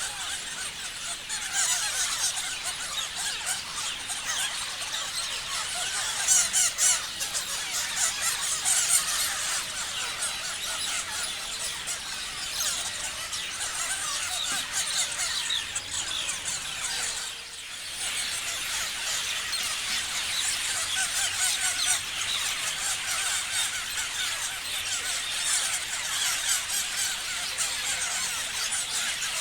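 Many parrots chirping and screeching continuously, a dense mass of overlapping high-pitched calls. The sound briefly drops away just before the last third.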